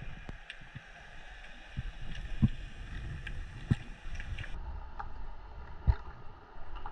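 Underwater sound as heard by a submerged camera: a steady low rumble of water surge with scattered sharp clicks and knocks, three of them louder than the rest.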